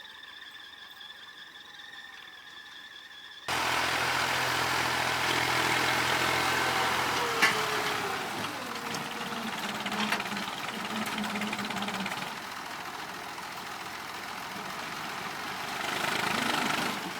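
Tractor engine running. It is faint with a steady whine for the first few seconds, then suddenly much louder, with a steady engine drone and a wash of working noise.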